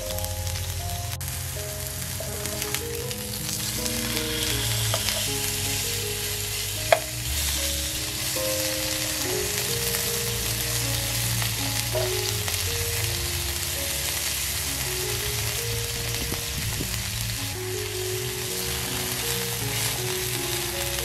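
Beef striploin steak searing in oil in a nonstick frying pan, sizzling steadily. A sharp click about a third of the way in, with a few fainter ones, as metal tongs touch the pan. Soft background music with held notes underneath.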